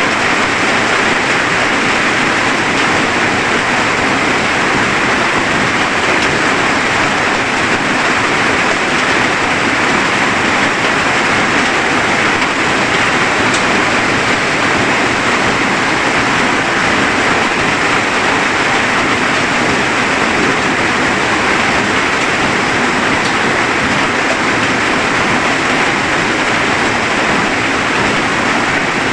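Steady rain falling, a dense, even hiss that holds unchanged throughout.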